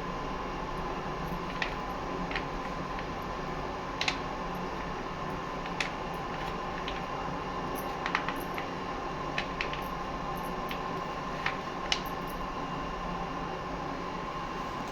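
Light clicks and taps of small hard items being handled, about a dozen scattered irregularly, over a steady background hum with a faint high tone.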